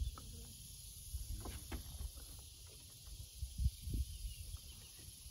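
Faint handling sounds as a freshly caught bowfin is worked out of a mesh landing net on a wooden dock and lifted up: soft scrapes and clicks, with a couple of dull thumps a little past the middle, over a steady faint high hiss.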